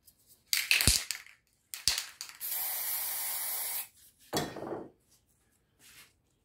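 Aerosol spray-paint can spraying a steady hiss for about a second and a half, a little after two seconds in. Before it come a couple of knocks and a short noisy burst of the can being handled, and a shorter rustling burst follows.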